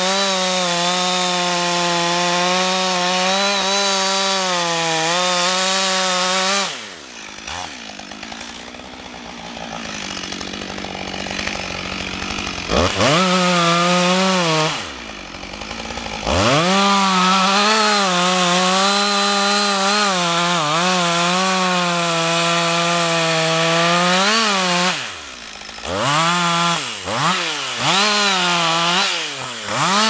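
Husqvarna 562 XP two-stroke chainsaw cutting into a conifer trunk at full throttle, its pitch wavering slightly under load. It drops to idle about seven seconds in and revs back up about six seconds later. It then cuts again at full throttle for about eight seconds and ends with a few short throttle blips.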